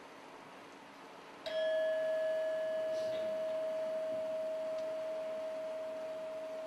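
A single struck metal bell rings out about a second and a half in. Its one clear pitch sustains and slowly fades over a faint hiss.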